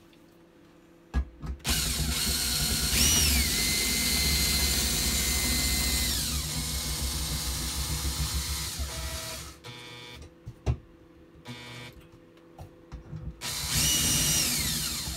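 Cordless drill driving screws through the mounting holes of a recessed toilet paper holder: the motor whine rises as the trigger is squeezed, runs steadily for several seconds and winds down. After a pause with a few knocks, the drill runs up again near the end.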